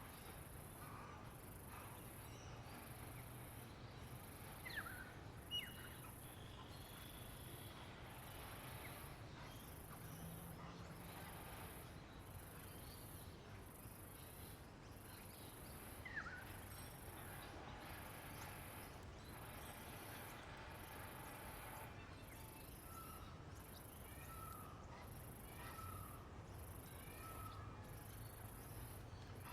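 Faint natural ambience: a very high insect trill pulsing evenly, a little faster than once a second, with scattered bird calls over it. Two sharp down-slurred calls come about 5 and 16 seconds in, and a run of four short falling notes comes near the end.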